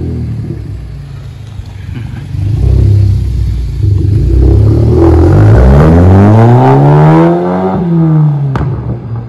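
Seat Leon 1.8 TSI turbocharged four-cylinder accelerating past with its rear and intermediate silencers removed, the exhaust loud and raspy. The revs climb steadily for about three seconds, then fall back near the end.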